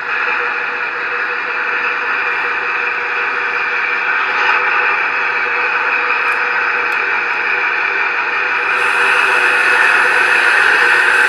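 Mtroniks Digisound large diesel sound module playing a simulated diesel engine running through a small speaker mounted in an RC truck, a steady hissy engine sound that grows a little louder about nine seconds in.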